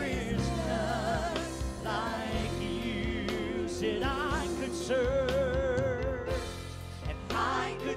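Live church worship music: singers holding long notes with vibrato over steady band accompaniment, between lines of a slow gospel chorus.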